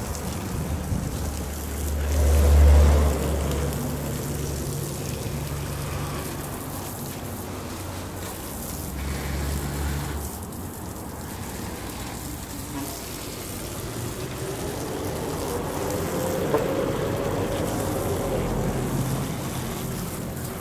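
Water spraying from a garden hose onto plants and soil, a steady hiss. A low rumble rises about two seconds in and again near the middle.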